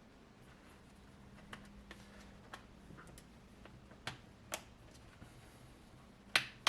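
Screwdriver undoing the screws on a laptop's plastic bottom case: scattered small clicks and taps of the driver and screws, a few sharper ones about four and four and a half seconds in and near the end.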